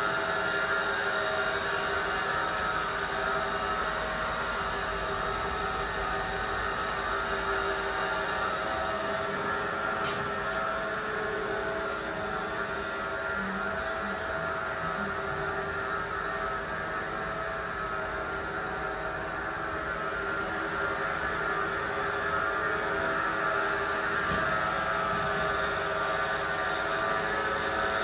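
Vertical revolving contour cutting machine running steadily during a foam cutting test: a continuous mechanical whir with several steady tones, as its blade cuts a single layer of PU-fabric-combined flexible foam.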